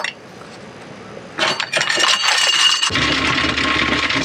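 Rebuilt forty-year-old Ideal electric anchor windlass starting about a second and a half in and running, with a steady motor whine and chain rattling over the gypsy and out of the chain locker as the anchor is let down.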